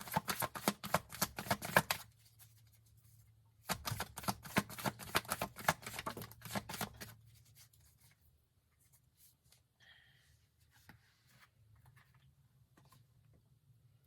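A deck of tarot cards being shuffled in two bursts of rapid flicking, the first about two seconds long and the second about three, followed by a few faint ticks.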